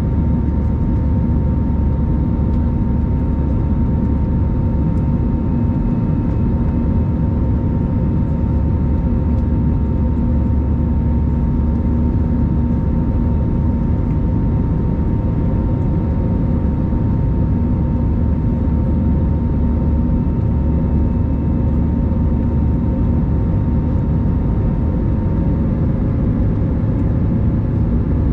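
Airbus A321 cabin noise: a steady, even drone from the engines and airflow, with a few steady tones over it. One of the tones shifts slightly near the end.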